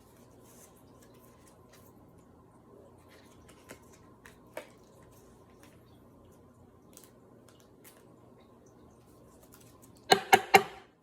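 Hands handling the packaging of trading cards: faint small clicks and rustles, then near the end a quick run of loud, sharp clicks or snaps, four together and two more just after.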